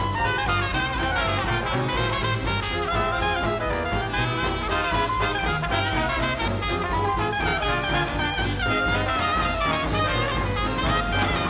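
Traditional jazz band playing swing: trumpet and trombone leading together over piano, guitar, double bass and drums.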